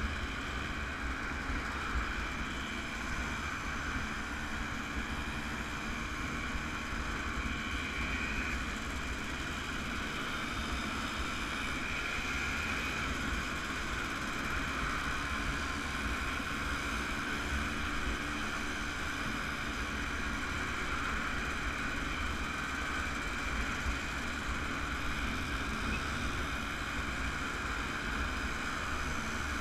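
Small vintage motorcycles running steadily at cruising speed in a column, their engine drone mixed with wind rushing and buffeting on the microphone.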